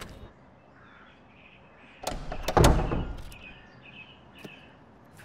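Faint bird chirps in the background, with a short cluster of knocks and a thud about two seconds in.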